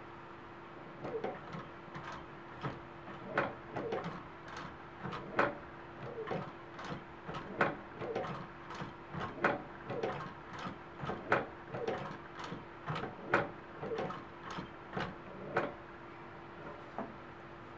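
Consew industrial sewing machine stitching slowly through a thick leather and cobra-skin belt: a steady motor hum under the needle and feed clattering at about one to two stitches a second, stopping near the end.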